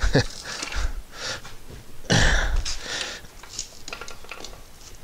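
A heavy concrete-filled plywood counterweight box being shifted and set down by hand. There is a sharp knock right at the start, then scraping rushes, the loudest about two seconds in, and a few light clicks.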